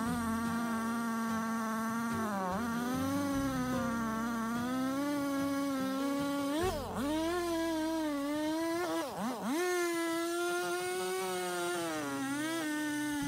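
Two-stroke chainsaw cutting through a felled oak trunk, running at high revs with its pitch sagging under load and picking back up several times as the cut bites and eases.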